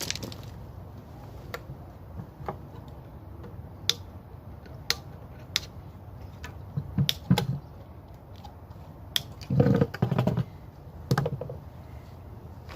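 Scattered clicks and knocks of hand tools and scrap parts being handled, with a louder clatter about ten seconds in.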